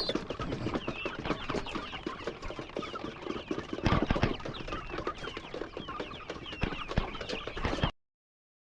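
A flock of chickens clucking and cheeping, many short high calls overlapping, with small clicks among them. It cuts off abruptly about eight seconds in.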